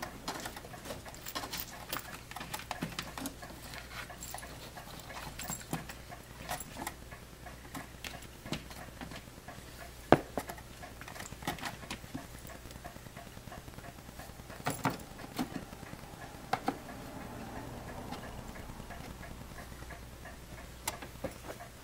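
Irregular light taps, knocks and rustles as a kitten paws at and climbs among hanging cables and a cardboard box. One sharper knock comes about ten seconds in, and a few more come close together a little later.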